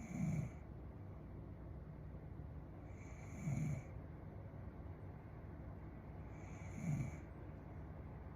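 A young woman snoring in her sleep: three short, low snores at an even pace, about three and a half seconds apart, over a steady low background hiss.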